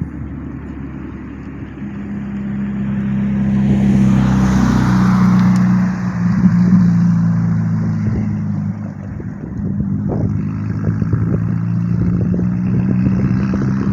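Norfolk Southern diesel freight locomotives approaching the crossing. A steady low engine drone builds from about two seconds in. In the second half there are rapid clacks of wheels over the rails.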